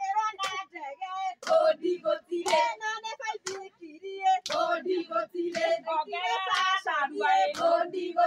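A group of women singing a Kikuyu song together, with hand claps among the singing.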